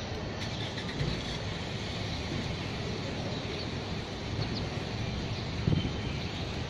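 Outdoor city ambience: distant road traffic as a steady wash of noise, with a few soft low bumps.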